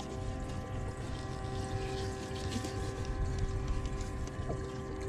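Boat motor running steadily: a low rumble with a constant hum, with a faint knock or two.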